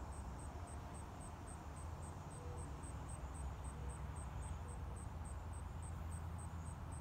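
Insect chirping faintly at a high pitch, a steady pulse of about four chirps a second, over a low steady rumble.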